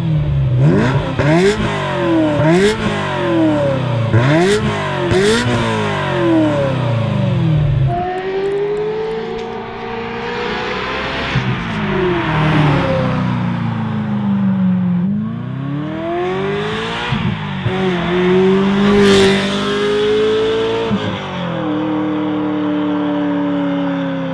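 Ferrari 348 V8 through a custom stainless X-pipe exhaust, revved in a series of quick blips for the first several seconds. After that come longer runs, the engine note climbing and dropping several times as the car drives past.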